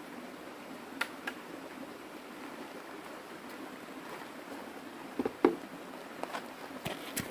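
Shallow stream running over rocks, with scattered taps and knocks of footsteps and handling on stony ground. The loudest knock, about five and a half seconds in, is a long bamboo pole landing across a plastic bucket.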